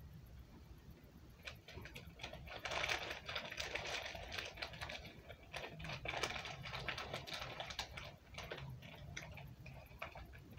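Eating sounds at a table: chewing with many small clicks and crackly rustles, busiest from about three to eight seconds in.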